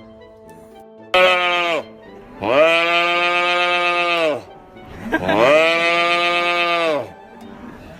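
A farm animal calling loudly three times: a short call, then two long drawn-out calls of about two seconds each, each one falling in pitch at the end.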